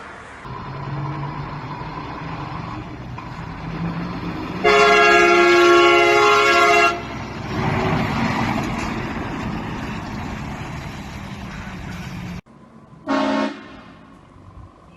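Air train horn fitted to a vehicle, sounding one loud steady chord for about two seconds over traffic noise, then a short blast near the end.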